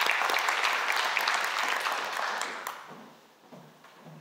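Audience applauding, the clapping fading out about three seconds in.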